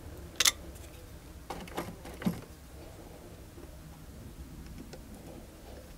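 A few light metallic clicks and taps from the throttle body as its throttle stop screw is turned with a screwdriver, half a turn at a time, while the throttle plate is set to just touch its bore. The clicks come in the first couple of seconds, the sharpest about half a second in and just after two seconds, then only faint ticks remain.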